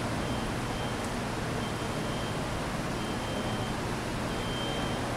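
Steady, even background noise with a faint low hum, and a faint high beep repeating about every one and a half seconds.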